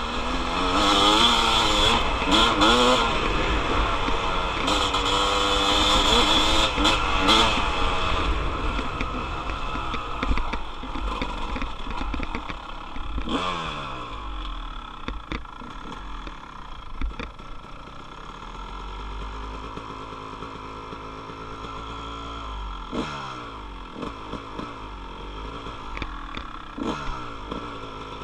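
Dirt bike engine revving up and down through the gears under hard throttle for the first several seconds, then backing off with falling pitch as the bike slows and runs quieter, with a brief rise and fall again near the end.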